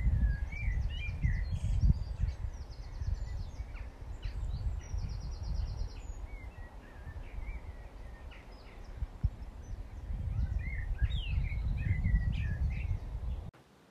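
Wind buffeting the microphone as a low rumble that rises and falls, with small birds chirping and singing over it, including a rapid buzzy trill about five seconds in. All sound cuts off suddenly shortly before the end.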